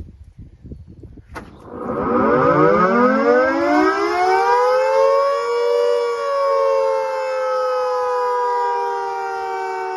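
A Secomak GP8 electric air raid siren, run on 415 V three-phase mains, starts up after a sharp click. It winds up from a low growl to a high wail over about three seconds, with two close notes sounding together, then holds a loud, slightly wavering wail.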